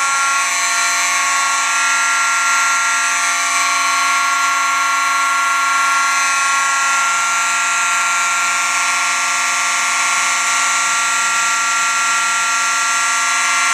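A bank of fire alarms sounding all at once, led by mechanical fire alarm horns. It is loud and steady, many overlapping tones held continuously without pulsing.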